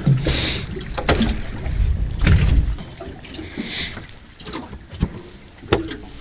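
Wind rumbling on the microphone and water lapping against a small boat's hull, with two short hissy rushes and a couple of sharp knocks near the end as fish are handled over an open chilly bin.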